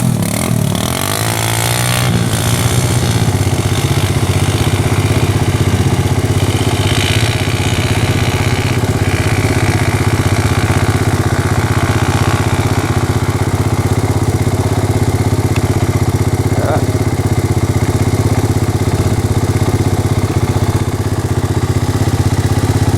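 Honda all-terrain three-wheeler's single-cylinder four-stroke engine running at a steady cruising pace under way, with a brief rise in pitch in the first couple of seconds.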